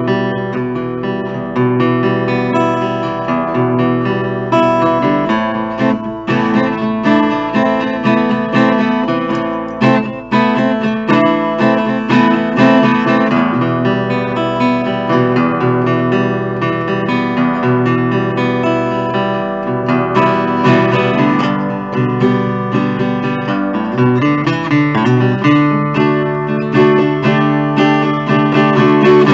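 1970 Guild Artist Award carved-top archtop guitar played acoustically with a pick, unplugged: continuous chords and single-note lines.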